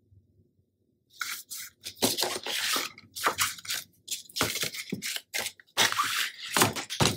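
Paper and cardstock being handled and shifted, rustling and scraping in short irregular bursts that start about a second in.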